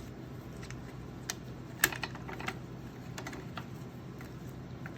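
Scattered light clicks and taps as a Horst link bolt is wiggled through its washers and bearing in a mountain bike's rear suspension linkage to bring the parts into alignment, with one sharper click about two seconds in.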